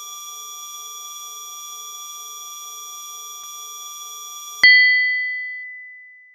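Electronic loading-screen sound effect: a steady synthetic buzzing tone with a faint pulsing underneath. About four and a half seconds in it breaks off into a single loud chime that rings out and fades, marking the progress bar reaching full.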